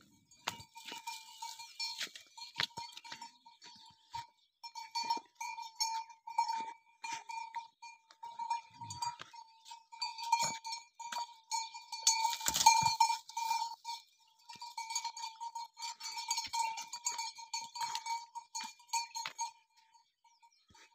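Metal bell worn by a camel clanking irregularly as the camel moves, its ringing tone coming and going; the strongest clanks come a little past the middle, and the bell falls quiet shortly before the end.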